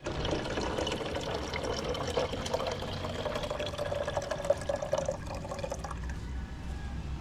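Water pouring into a container, its tone rising slightly as it fills, with a crackle of small splashes; the pour stops about six seconds in.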